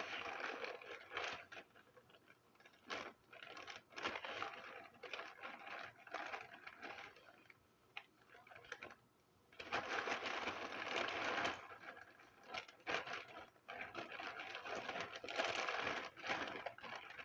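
Hands rummaging through a bin of plastic fidget toys: irregular rustling and clattering with many small clicks of plastic on plastic, with a brief pause about halfway through.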